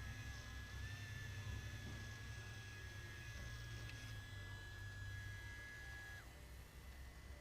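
3Doodler 3D pen running, a faint steady high whine over a low hum; the whine drops slightly and stops about six seconds in.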